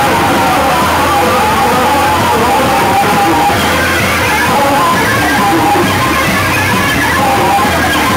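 Noise-rock duo playing live: electric bass and drum kit in a loud, dense, unbroken stream of notes and beats, picked up close to the drums.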